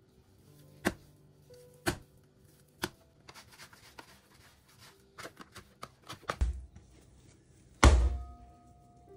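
Sticky bread dough slapped down onto a countertop three times, about a second apart, in French-fold kneading. A plastic bench scraper then scrapes and taps across the counter, and near the end come two heavy thumps, the second the loudest.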